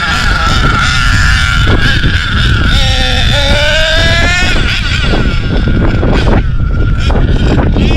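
HPI Savage X4.6 nitro RC monster truck's .46 two-stroke glow engine being driven hard, its high whine falling and rising with the throttle, climbing steeply about three seconds in and settling to a steadier note near the end.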